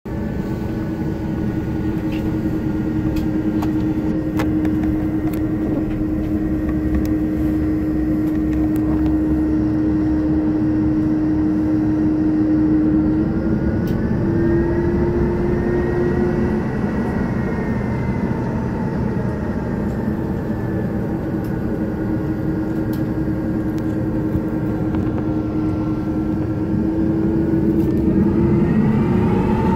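Airbus A330-300's Pratt & Whitney PW4168A turbofans running at taxi power, heard inside the cabin as a steady hum with a held tone and higher whining tones that drift in pitch. Near the end the tones rise as the engines start to spool up.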